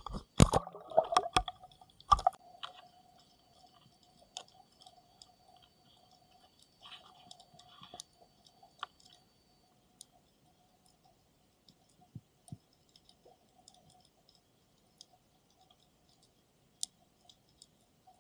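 An action camera in a waterproof housing knocked about and plunging into the sea, several loud sharp knocks and a splash in the first two seconds or so. Then, underwater, a faint steady hum with sparse sharp clicks scattered throughout.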